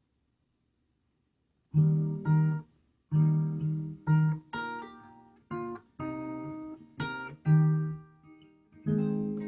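Acoustic guitar playing the instrumental introduction to a folk song: after a pause of under two seconds, a series of picked and strummed chords, each ringing and fading before the next.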